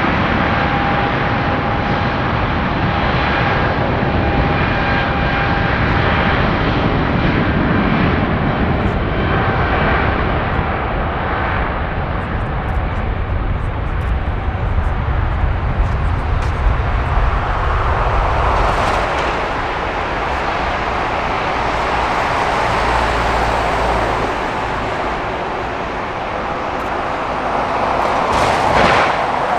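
Jet airliner's engines running as the aircraft passes: a steady rush with a faint whine in the first several seconds that fades out.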